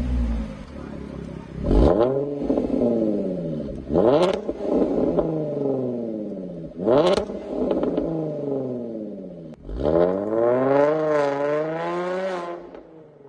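Jaguar XFL engine with an upgraded exhaust being blipped from idle four times, each rev rising sharply and sagging back slowly. The last rev is held up for a couple of seconds before dropping off near the end. The tuned sound is meant to have a supercharged character.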